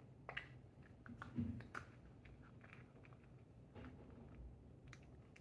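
A British Shorthair munchkin cat chewing and biting its food up close, a run of small irregular clicks with a louder bite about a second and a half in.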